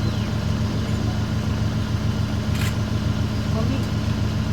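Safari vehicle's engine idling steadily, with a single sharp click about two and a half seconds in.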